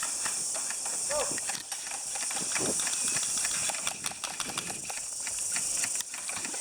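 Outdoor ambience: a steady high hiss with many scattered clicks and crackles, and faint distant voices.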